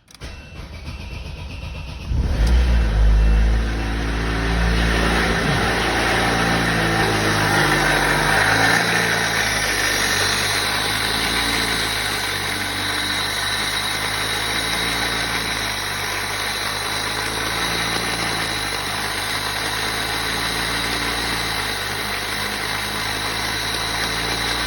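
Opel Zafira 1.8 petrol engine cranked by the starter, catching about two seconds in with a brief flare of revs, then settling to a steady idle. It is hammering loudly; the title blames a knock from the water pump, though the mechanic doubts a pump could make such a racket.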